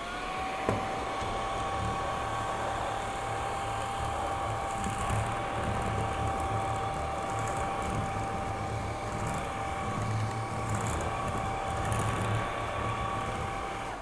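Xiaomi Mi Vacuum Cleaner Light cordless stick vacuum switched on: its motor spins up within half a second to a steady whine and runs while sucking up scattered dry dog kibble, with a single sharp click shortly after it starts.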